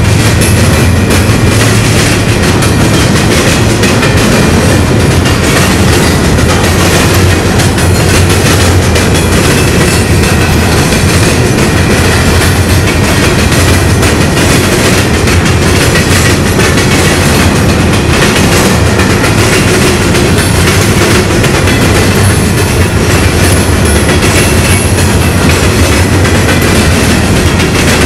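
A train of empty rock hopper cars rolling past close by: a steady rumble of steel wheels on rail, with a constant clatter of wheels striking the rail joints and diamond crossings.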